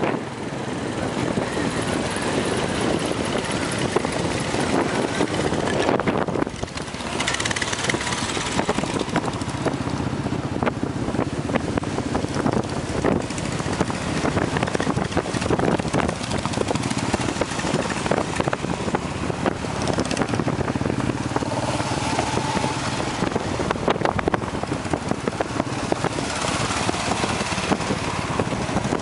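Motorcycle engine running steadily while riding, with wind rushing over the microphone. The sound drops off briefly about six seconds in.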